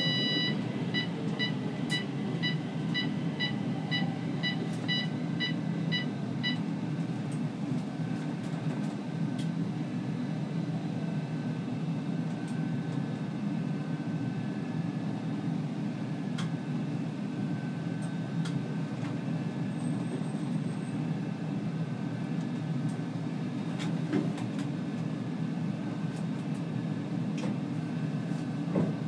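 Stockholm C20 metro train's equipment humming steadily in the cab. Over it, a rapid electronic beeping signal, two or three short beeps a second, stops about six and a half seconds in.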